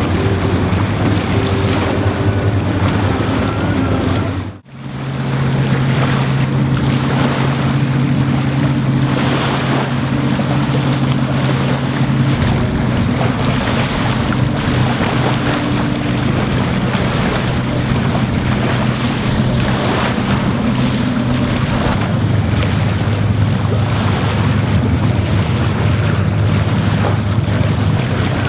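Wind rushing across the microphone over a low steady engine drone from the passing cruise ship Emerald Princess. The sound cuts out briefly about five seconds in.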